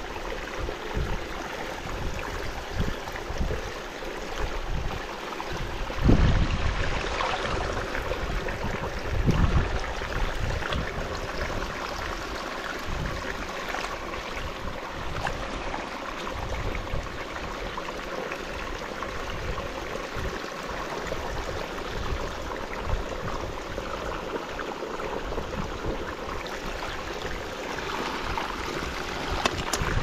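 Water running steadily through a canal, with a couple of louder low bumps about six and nine seconds in.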